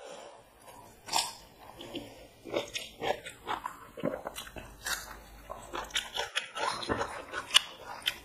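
Close-miked eating of chicken biryani by hand: wet chewing and lip smacks, many short sharp clicks in an irregular run, with fingers working rice on paper plates.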